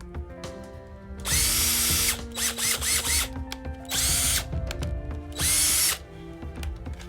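Cordless DeWalt power tool motor run on a freshly rebuilt battery pack, trigger pulled in bursts: a run of about a second, a string of quick short blips, then two more short runs, each spinning up from a start. Background music plays underneath.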